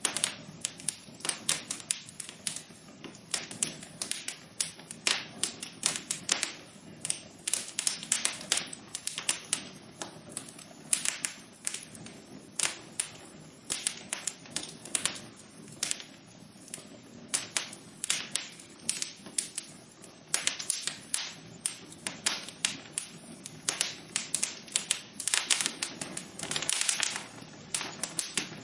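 Wood fire crackling in a fireplace: a dense run of irregular snaps and pops, several a second, over a soft steady hiss.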